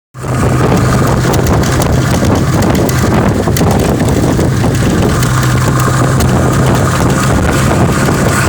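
A steady engine drone with a constant low hum, mixed with wind rushing on the microphone.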